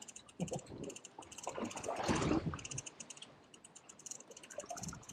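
Rapid light clicking and ticking, with a louder scuffling rustle about two seconds in.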